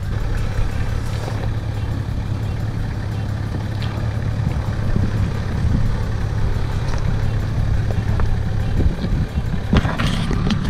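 Toyota LandCruiser 80 Series four-wheel drive crawling along a rutted dirt track, its engine running at low, steady revs. A few sharp knocks come near the end.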